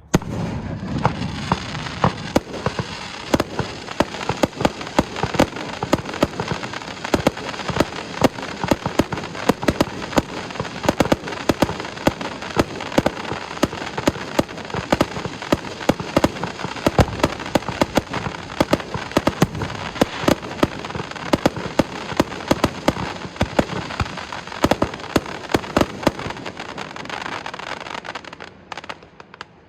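Fireworks crackling: a dense, continuous run of rapid sharp pops that starts abruptly and thins out near the end.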